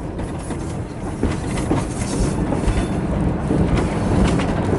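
Train running along the track, heard from an open railroad car: a steady rumble of wheels on rail with occasional clacks, growing a little louder.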